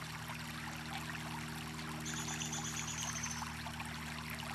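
Creek water running and trickling steadily. A single high, thin whistle that falls slightly comes in about two seconds in and lasts about a second and a half.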